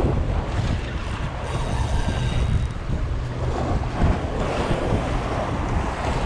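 Wind buffeting the microphone, with waves washing underneath.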